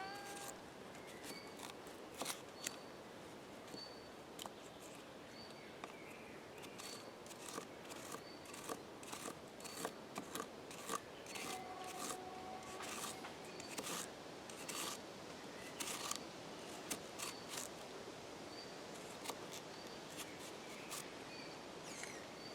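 Cold Steel Recon 1 Tanto folding knife slicing through a raw carrot: a long run of faint, irregular, crisp cutting clicks.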